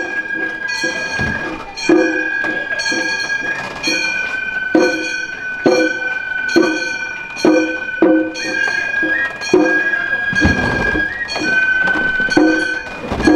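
Gion-bayashi festival music from the Funaboko float: a bamboo transverse flute holds a high note, shifting pitch a few times, while small hand-struck brass gongs clang about once a second. A few low thuds come in, the longest between ten and eleven seconds in.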